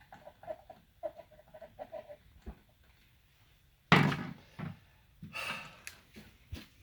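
Light clicks of small parts being handled, then a single loud sharp knock about four seconds in, a softer knock right after, and a brief scraping rustle.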